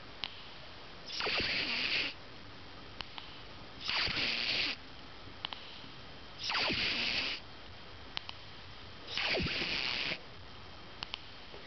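A kitten snoring in its sleep, its nose congested by a bad cold. There are four raspy breaths about two and a half seconds apart, each about a second long. A thin whistle falls in pitch through each one.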